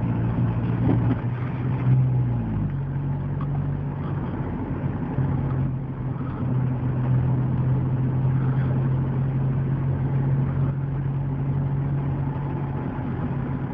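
Car engine and road noise while the car is driven, a steady low hum whose pitch shifts about two and a half seconds in and then holds steady.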